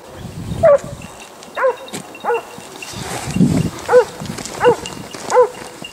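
Hunting dog barking over and over in a steady rhythm, about six barks from half a second in, a bark every second or less: a hound giving tongue as it chases a wild boar.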